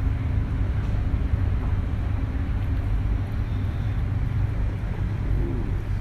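Steady low rumble of background noise with no clear events in it.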